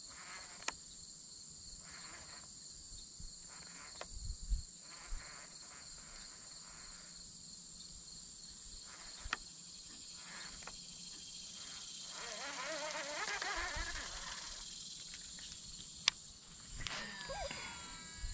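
Insects chirring, a steady high-pitched drone that runs on, with a few sharp clicks and a louder rustling patch about two-thirds of the way through.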